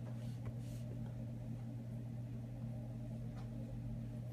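A steady low hum, with a few faint soft ticks.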